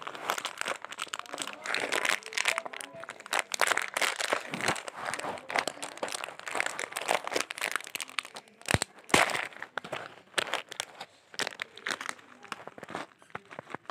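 Plastic snack packet crinkling and rustling as a packet of peanuts is opened and handled, with irregular crackles and crunches.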